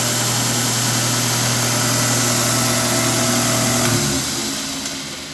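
Belt grinder with a 1.5 hp, 3,600 RPM electric motor running with its belt turning, giving a steady hum; about four seconds in it is switched off and winds down, fading away.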